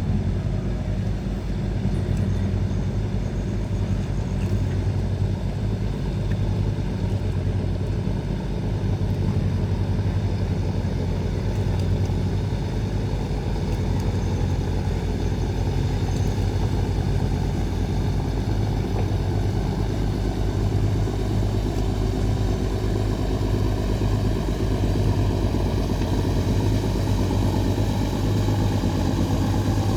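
Fishing boat's engine running steadily at a constant speed, a low even drone with a fast regular pulse.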